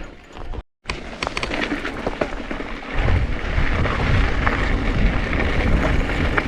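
Wind buffeting the microphone over the rattle and crunch of a mountain bike rolling over rocky trail, with scattered clicks. The low rumble grows much louder about three seconds in, after a brief cut to silence near the start.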